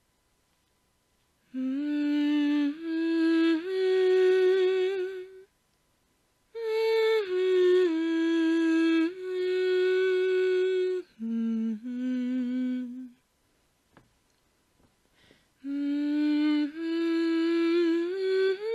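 A woman humming a slow, wordless tune in three phrases of held notes that slide from one pitch to the next, starting about a second and a half in, with breaks near the middle and about two-thirds of the way through.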